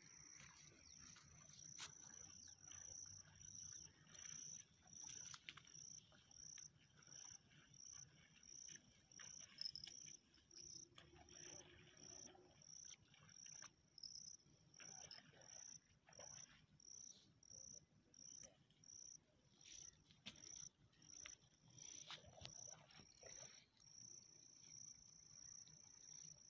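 Faint insect chirping: a high, thin trill pulsing about one and a half times a second, running on unbroken about three-quarters of the way through.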